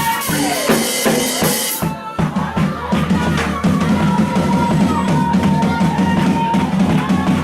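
Live church band music: a drum kit with a cymbal wash that cuts off about two seconds in, under a held keyboard note and low chords.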